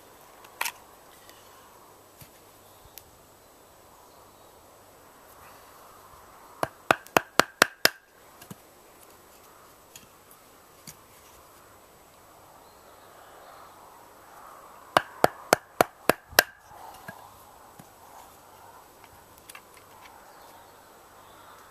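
Two bursts of quick, sharp knocks on wood, about six strikes each at roughly five a second, the first about a third of the way in and the second about three-quarters through, with a few single taps between.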